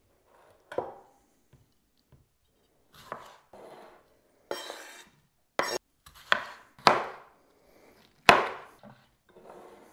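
Chef's knife chopping tomatoes on a wooden cutting board: uneven, separate knocks of the blade striking the board, the sharpest ones in the second half, with softer scrapes between.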